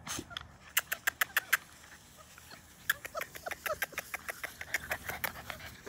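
Labrador Retriever puppies, nearly six weeks old, play-fighting on grass: small high squeaks come amid a run of sharp clicks and ticks.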